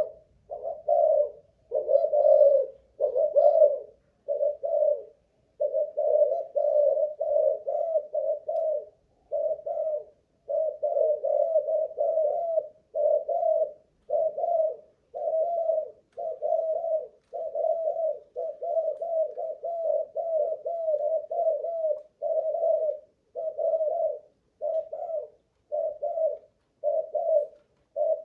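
Spotted dove cooing without letup: a long run of short, low coo phrases, one after another with only brief pauses between them.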